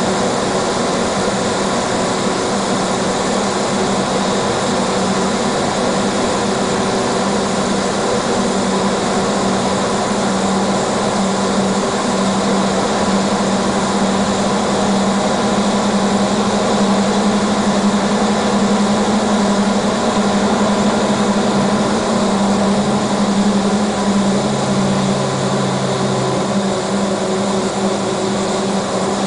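Steady engine drone and road noise of a vehicle driving through a road tunnel, with a constant low hum running under the noise. A second, lower hum comes in briefly near the end.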